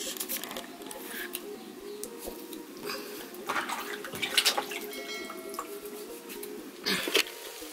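Kitchen knife cutting through a tomato held in the hand, with soft clicks as the blade meets the thumb and wedges drop onto a plastic plate, and a brief splashing of water in a metal basin about halfway through.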